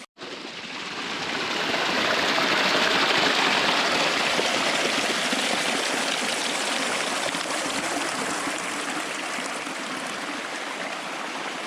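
Steady rushing of flowing stream water, with no pitched sound in it, building up over the first two seconds and then easing off a little.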